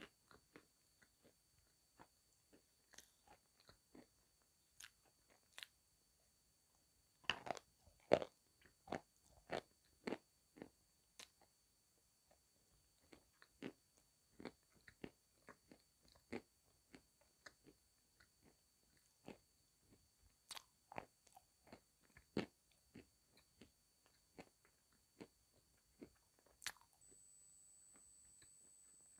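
Close-up crunching and chewing of a piece of eating chalk: scattered crisp bites and crunches, faint overall, with a busier, louder run of them about seven to nine seconds in.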